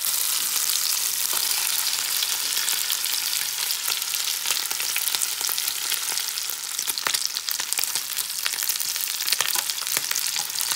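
Lamb chops frying in hot melted butter in a pan: a steady sizzle with scattered sharp crackles and spits.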